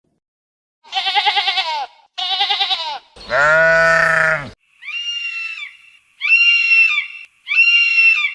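A series of six animal calls with short gaps between them: two wavering calls, then a longer, lower call, then three short high-pitched calls.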